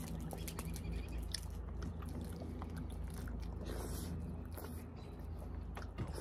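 A person eating: close chewing and biting with small scattered clicks, over a steady low hum.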